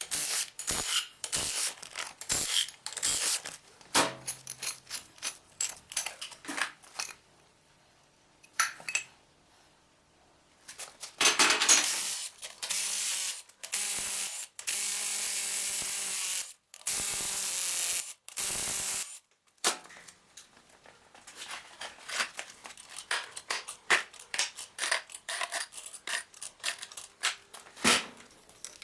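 Metal tools and engine parts clinking and clattering during the teardown of a Mercedes-Benz OM441 diesel engine. In the middle a power tool runs for about eight seconds in three runs with short breaks, and then the clinking resumes.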